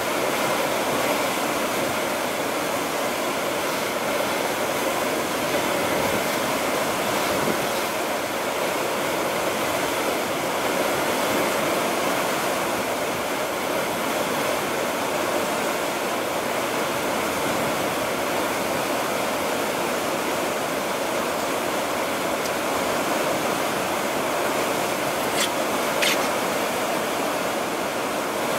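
Steady rushing wash of sea water along the hull of a ship under way. Two short clicks come near the end.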